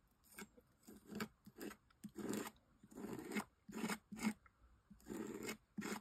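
Palette knife spreading and scraping thick embossing paste across a stencil, about ten short, uneven scrapes.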